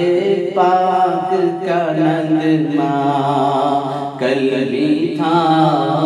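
A man's voice singing an Urdu naat in long, wavering held notes over a steady low hum.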